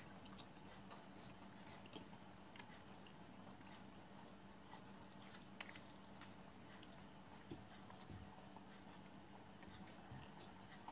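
Near silence: faint room hum with a few faint clicks and soft taps from eating by hand off a steel plate, with faint chewing.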